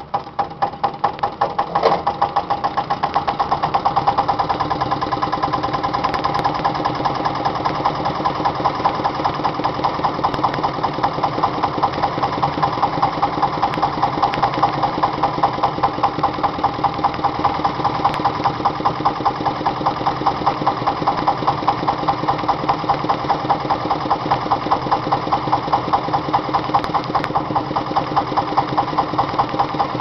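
Petter PAZ1 single-cylinder diesel engine on a Benford concrete mixer catching right at the start, picking up speed over the first few seconds, then running steadily with an even, rapid beat of firing strokes.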